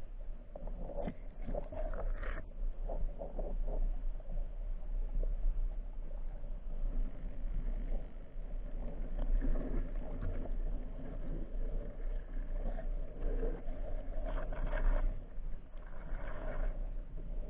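Underwater noise picked up through a camera's waterproof housing: a steady low rumble with water swishing and scraping, and a few louder brushing scrapes against the housing near the middle and end.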